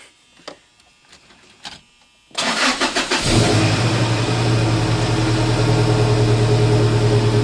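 A few faint clicks, then the 1999 Toyota Tacoma's 2.7-litre 3RZ four-cylinder engine cranks briefly, catches about two and a half seconds in, and settles into a steady idle.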